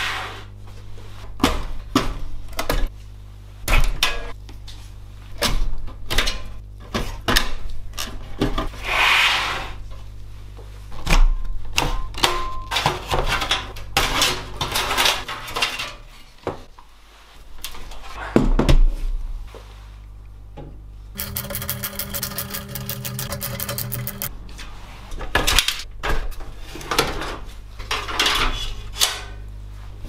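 A steel PC tower case and its parts being handled: repeated knocks, taps and clicks of metal, with a few short scrapes as panels and parts slide. Just past the middle comes a rapid, even clicking lasting about three seconds.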